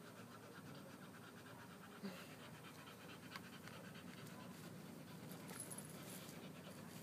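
A dog panting quickly and rhythmically, out of breath after a walk/run. There is a soft knock about two seconds in.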